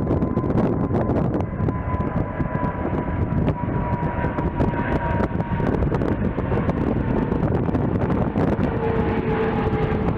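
Jet airliner engines passing, a steady whine that slowly drops in pitch, over heavy wind buffeting on the microphone.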